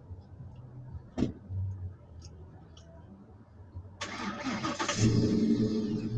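A vehicle engine being started: about a second of cranking, then it catches and settles into a steady idle. There is a single sharp click about a second in.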